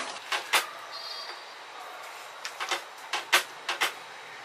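A silicone spatula stirring thick spinach and paneer gravy in a steel kadhai, with a series of sharp knocks against the pan. Two knocks come just after the start and a quick cluster of about six falls in the second half.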